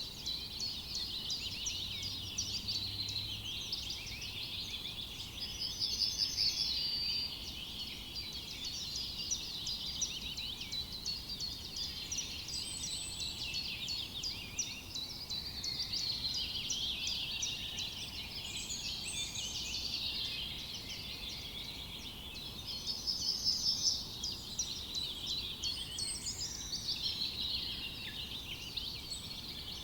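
Many forest songbirds singing at once in a dense, continuous chorus of chirps and trills. A louder, rapid trill stands out about six seconds in and again about three-quarters of the way through.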